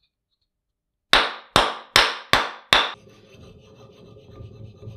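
Five quick, loud scraping strokes in a row, about 0.4 s apart, followed by a fainter steady rubbing sound with a low hum.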